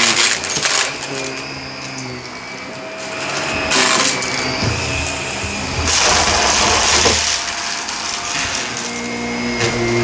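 Shark vacuum cleaner running over carpet, its motor humming steadily while scattered debris is sucked up with a crunching, rattling sound. The suction noise swells about four seconds in and again around six to seven seconds.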